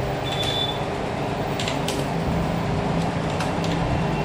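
Steady background hum and low rumble of the room, with a few faint computer mouse clicks.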